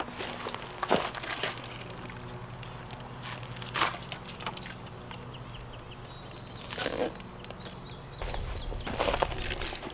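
Plastic shrink-wrap bag crinkling in a few short bursts as a whole chicken in it is handled and dipped into hot water to shrink the bag. Under it is a steady low hum, with faint short high chirps in the middle.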